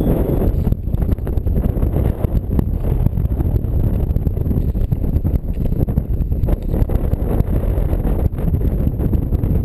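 Strong wind buffeting the microphone: a loud, uneven low rumble that rises and falls in gusts, with scattered crackles.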